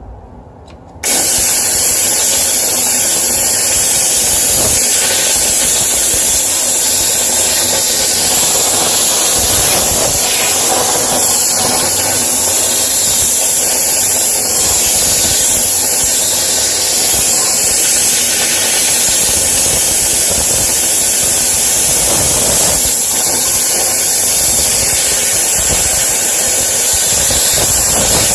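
HomeRight SteamMachine steam cleaner's pressurized steam head jetting steam in a loud, steady hiss that starts suddenly about a second in, blasting through a shower head's spray holes to clear blockages.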